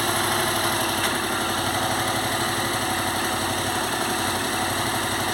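Yamaha MT-07 motorcycle's 689 cc parallel-twin engine idling steadily, its exhaust giving an even low pulsing with no revs.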